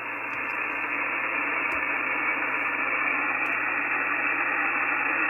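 Steady receiver hiss from an ICOM 7610 transceiver's speaker on the 17-metre band, coming in suddenly as it switches back from transmit to receive; the hiss is limited to the narrow single-sideband voice passband.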